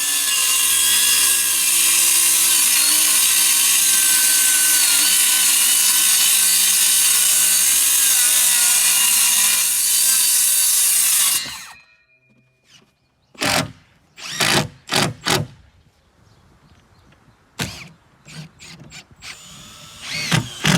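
A power tool runs loudly under load for about eleven seconds, its motor pitch wavering as it works through the lumber, then cuts off. This is followed by a run of separate knocks and clatters of wood.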